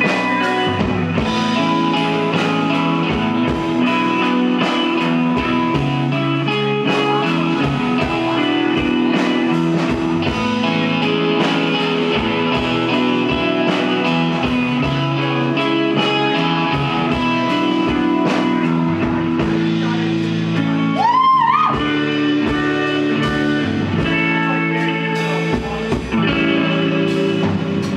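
Live rock band playing an instrumental break with electric guitar to the fore over a steady beat. About three-quarters of the way through, a short swooping note bends up and down above the band.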